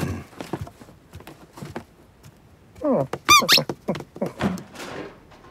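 Cartoon cat's voiced effort noises as it climbs a staircase: a few soft taps, then about three seconds in a quick run of short, high, squeaky strained cries rising and falling in pitch.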